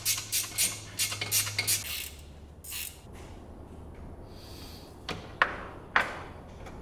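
Small parts being handled and fitted in an engine bay, likely the distributor and its spark plug wires: a quick run of light clicks in the first two seconds, then two sharper clicks near the end.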